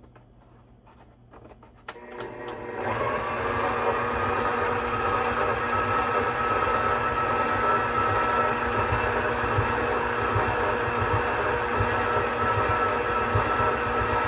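An electric stand mixer is switched on with a click about two seconds in. Its motor whine rises briefly as it spins up, then it runs steadily as the paddle beats the dough.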